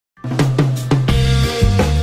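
Background music: drum hits over a bass line, starting a moment in after a brief silence.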